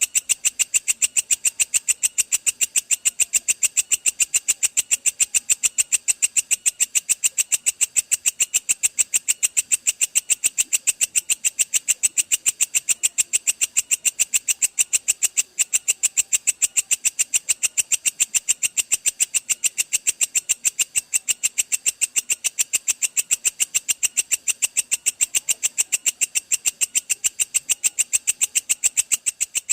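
Belalang kecek katydid giving its long rapid-fire 'tembakan' call: a steady, unbroken train of sharp, high-pitched ticking pulses, about five or six a second.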